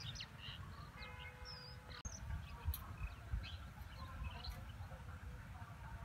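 Birds chirping and calling, many short scattered chirps, over a low uneven rumble.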